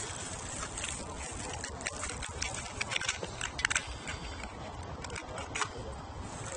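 Scattered small clicks and crackles, with a few sharper ones about two to four seconds in, over a steady low rumble of wind on the microphone.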